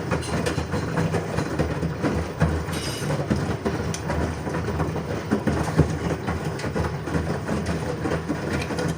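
LG washing machine running: a steady low rumble with rapid, irregular clicking and knocking.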